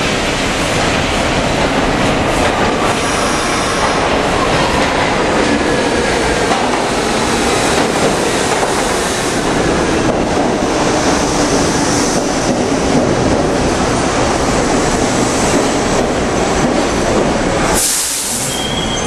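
Budd-built stainless-steel R-32 New York City subway train pulling into the station and slowing, a steady rumble of wheels on rails with clickety-clack. Near the end, as it stops, there is a sharp hiss of air lasting about a second.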